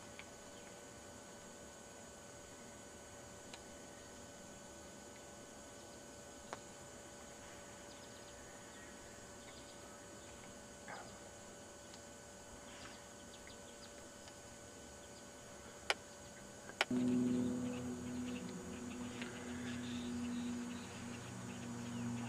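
A faint steady background with a few soft clicks and faint short chirps. About three-quarters of the way in, a sharp click is followed by a loud, steady, low hum that holds to the end.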